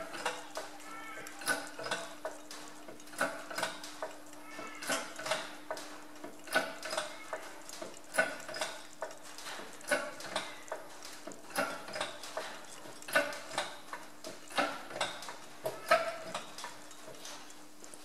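A 50-tonne hydraulic shop press being hand-pumped, its lever and pump clanking metallically on each up and down stroke, about two clanks every second and a half, steady and even. The press is building load to force a tight, stepped bush out of a tractor front-axle pivot housing.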